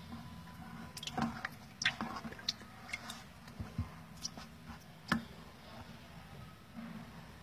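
Live rice-field eels squirming and being grabbed by hand in a plastic basin with shallow water: irregular wet squelches, slaps and small clicks, over a low steady hum.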